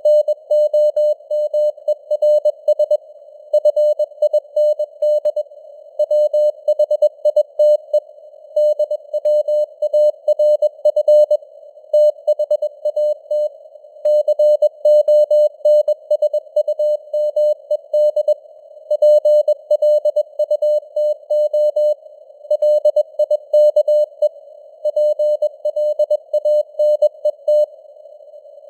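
Morse code (CW) sent at 21 words per minute: a single mid-pitched tone keyed on and off in dots and dashes, with short gaps between words. It sits in a narrow band of simulated radio hiss, and the signal strength fades up and down (QSB).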